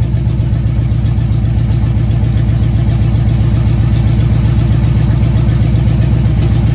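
Chevrolet 454 big-block V8 idling steadily on its first test run after being installed as a replacement engine.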